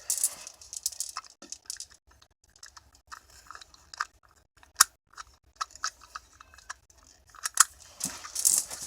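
Scattered small clicks, taps and rustles of handling, with two sharp clicks about five and seven and a half seconds in.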